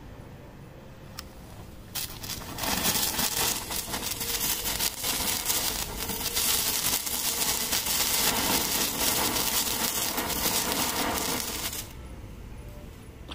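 Handheld Standard Fireworks pencil cracker burning: a loud, crackling hiss of spraying sparks that starts about two seconds in and drops away near the end.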